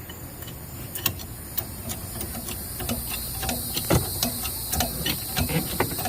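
Irregular light metallic clicks and ticks, growing busier after about a second, as the strap and hook hardware on a truck-bed crane are handled.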